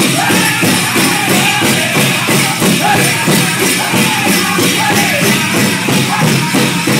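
Powwow drum group singing over a steady, even drumbeat, with the jingle of dancers' leg bells.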